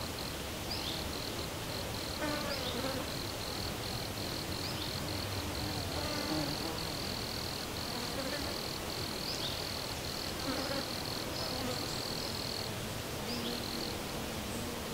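Insects buzzing: a fly- or bee-like drone wavers in and out, under a steady high-pitched insect trill that breaks off briefly now and then and stops about 13 seconds in. Short rising chirps come through at intervals.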